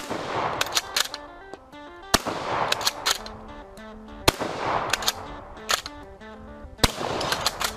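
Bolt-action shotgun fired four times, about two seconds apart, each shot trailing off in an echo, with the bolt clicking as it is worked between shots. Background music plays underneath.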